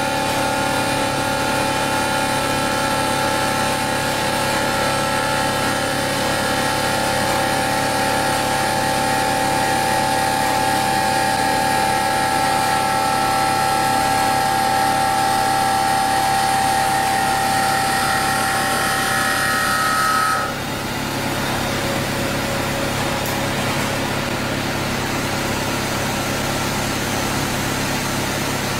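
Large hydraulic swaging press running while it works a heavy steel wire rope sling: a steady mechanical hum with a high whine, which cuts off about twenty seconds in, leaving a slightly quieter hum.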